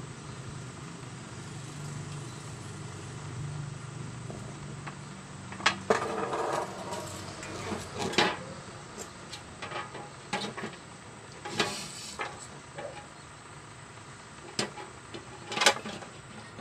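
Irregular metallic knocks and clatter as a circuit board on an aluminium heatsink is handled and set into a sheet-metal case, with a few sharp knocks standing out. A low steady hum runs through the first few seconds.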